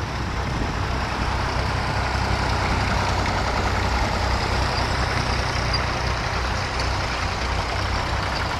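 Vintage tractor engines running steadily, one tractor driving slowly past close by and getting a little louder in the middle.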